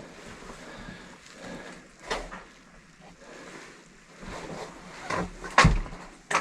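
Quiet scuffing with a few sharp knocks, the loudest about five and a half seconds in.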